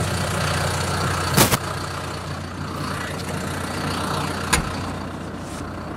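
Farm tractor engine running steadily with a low hum, with two sharp knocks, the louder about a second and a half in and another near the end.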